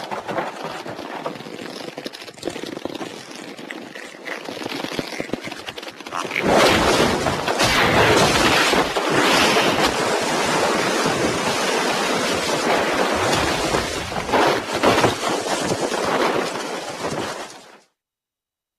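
Century King Sun Driver transformation-belt sound effect: a crackling, shattering noise that grows loud about six seconds in, runs on, then cuts off suddenly near the end.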